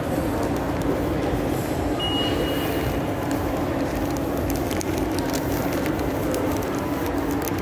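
Steady rushing background noise with a low hum, and one short high-pitched beep about two seconds in, typical of an infrared forehead-temperature scanner taking a reading.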